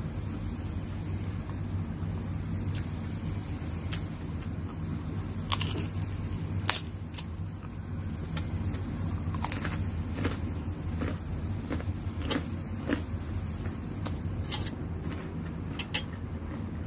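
Crisp crunches of a fried kerupuk cracker being bitten and chewed, a dozen or so irregular cracks starting about five seconds in, over a steady low hum.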